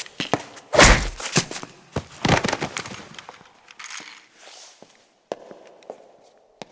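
A mix of film Foley and hard sound effects playing back: a run of sharp impacts and thumps, the loudest a heavy thump about a second in and another at about two and a half seconds, followed by lighter clicks and taps.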